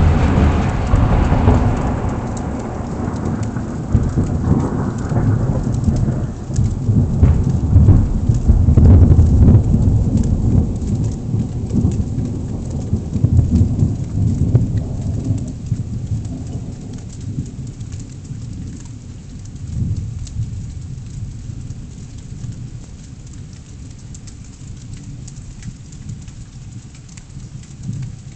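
Thunder rumbling low and loud right after a close strike, swelling again several times and slowly dying away over about twenty seconds, with rain falling.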